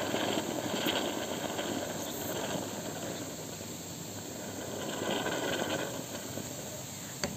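Cleaning fluid fizzing and bubbling as it is forced by syringe through a Sparta combi boiler's clogged plate heat exchanger, foaming out of the opposite port. It makes a steady hiss throughout.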